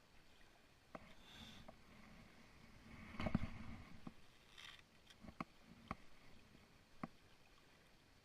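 Faint, scattered sharp clicks, with one louder muffled thump about three seconds in.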